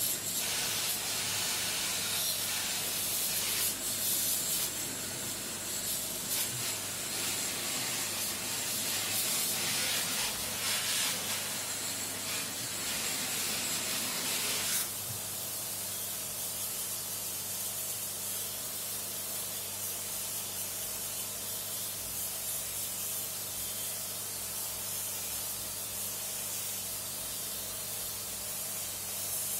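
Water spraying with a steady hiss, cleaning an air conditioner's dirty filter. It cuts off suddenly about halfway through, and a low steady hum carries on afterwards.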